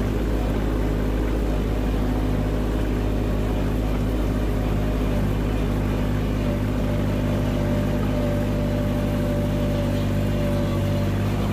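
Engine of a small open vehicle running steadily, with an even, unchanging drone.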